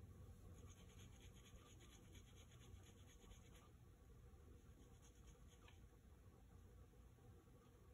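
Faint, quick, rhythmic scraping of food rubbed against a flat metal hand grater, stopping about halfway through, followed by one soft tick.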